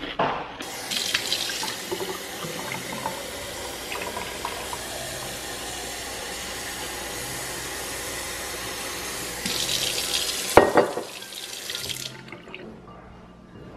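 Tap water running steadily into a sink, turned on just after the start and shut off about twelve seconds in, with a sharp knock shortly before it stops.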